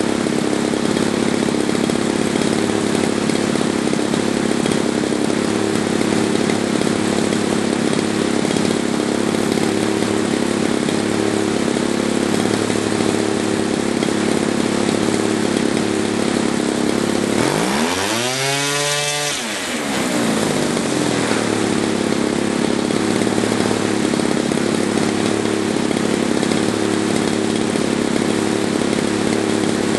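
Gasoline RC model-airplane engine on RC-EXL electronic ignition, running steadily at high throttle. About two-thirds of the way through, it is throttled down and quickly opened back up, its pitch falling and rising within a few seconds. It runs evenly on the new ignition.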